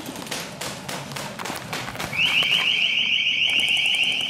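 Scattered clicks and taps, then about halfway through a loud, high-pitched alarm tone starts, pulsing rapidly and steadily.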